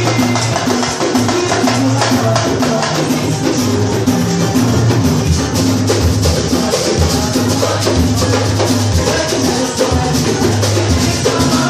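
Batucada samba percussion ensemble playing live: low surdo bass drums ringing under a dense, steady rhythm of smaller drums and percussion.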